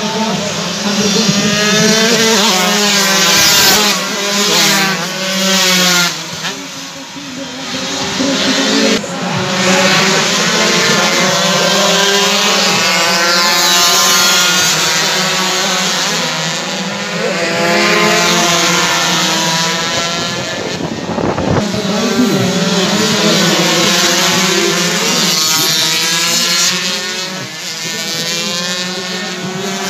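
Two-stroke 125cc underbone racing motorcycles running at high revs as they pass, their engines rising and falling in pitch through throttle changes and gear shifts.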